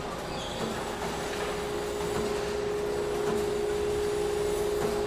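Interior ambience of a spring manufacturing plant: machinery running with a steady hum over a constant noisy clatter, with an occasional small knock.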